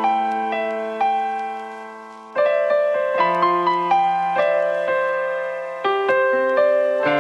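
Solo piano music: chords struck and left to ring under a slow line of single notes, the first chord fading for about two seconds before the next is struck.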